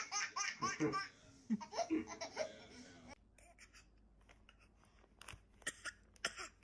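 Baby laughing in repeated bursts of giggles that cut off about three seconds in, followed by faint short clicks and small mouth sounds.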